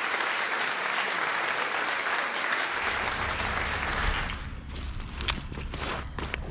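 A steady hiss of running water for the first four seconds or so. It then drops away to footsteps crunching on river gravel, a series of short sharp crunches.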